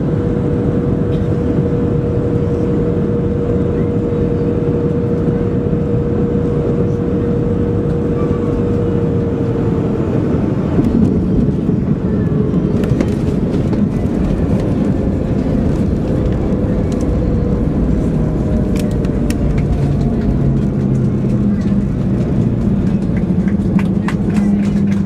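Boeing 737-400 cabin noise while the airliner rolls after landing: steady engine and air noise with a humming tone that drops slightly about ten seconds in. From about thirteen seconds on, scattered clicks and rattles join it.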